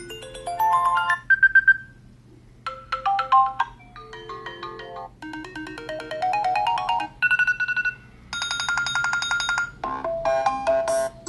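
New iOS 7 iPhone ringtones previewed one after another: about seven short electronic melodies, each a second or two long and cut off abruptly as the next one starts. One is a fast repeated trill about three-quarters of the way through.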